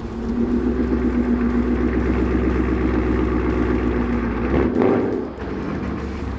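A car engine running at low speed, a steady hum with a deep rumble, swelling briefly about five seconds in and then settling a little quieter.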